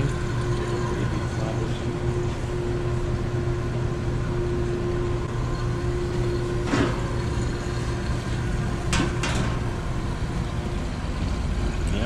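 Steady drone of HVAC machinery running in a mechanical room: a low hum with a held mid-pitched tone. A few short knocks about seven and nine seconds in.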